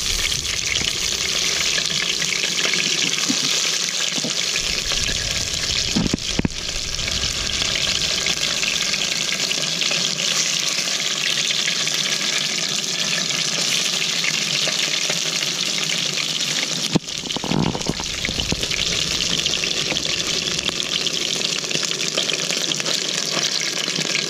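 Steady hiss of a portable butane stove burning under a steel pot of fish simmering in water. A metal spoon knocks against the pot twice.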